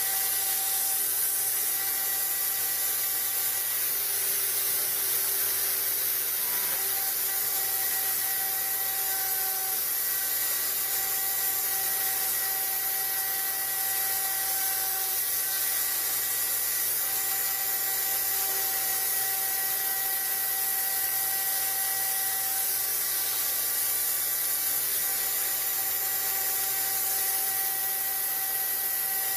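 1 HP spindle of a desktop mini CNC router engraving steel: a steady high hiss and whine, with several softer steady tones that drop in and out as the machine moves.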